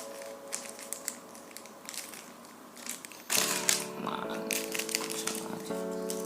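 Plastic snack packets crinkling and crackling as they are opened by hand, with a louder crackle a little past halfway, over background music.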